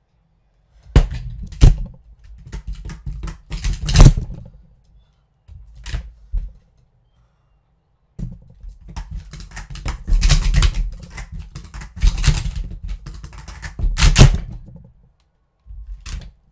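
Handling noise from a plastic Speed Stacks StackMat G5 timer being picked up and moved about close to the microphone: irregular clicks, taps and dull knocks in clusters, with quiet gaps between. The loudest knocks come about four seconds in and again near fourteen seconds.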